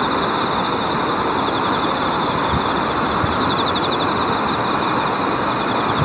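Steady rushing of flowing river water, with a continuous fine high-pitched trill above it.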